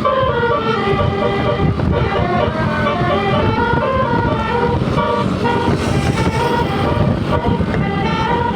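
Bus telolet basuri horn playing a quick tune of short stepped notes, over a low rumble.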